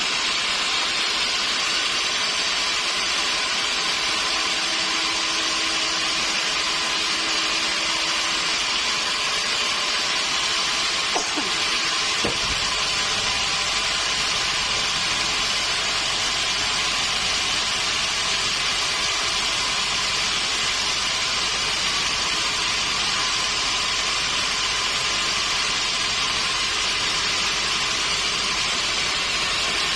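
Sawmill machinery running with a steady, hiss-like noise. Two knocks come about eleven and twelve seconds in, after which a low hum joins.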